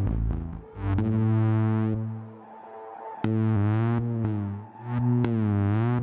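Spectrasonics Omnisphere synth preset "Troublesome Feelings" from the Undercurrent library, playing a dark, pulsing arpeggiated pattern. The notes last about a second each, several with a sweeping, wavering tone, and sharp clicks mark some note starts.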